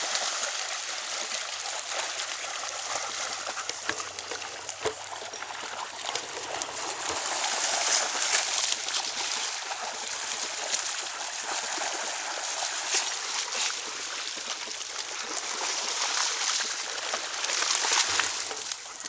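Several dogs splashing through the shallow edge of a pond, over a steady rushing hiss.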